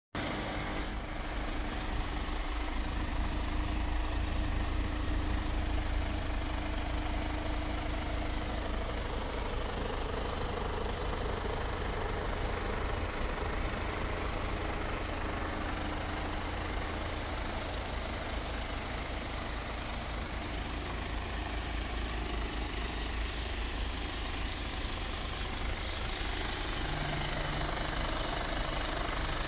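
Mercedes Actros diesel truck engine idling with a steady low rumble.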